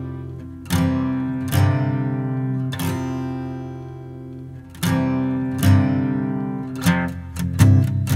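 Background music: acoustic guitar strumming chords, each struck and left to ring, with the strums coming faster near the end.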